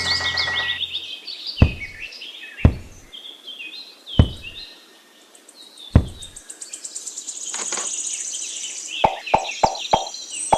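Birds chirping, with four sharp knocks spaced a second or two apart, then a quick run of light taps, about four a second, near the end.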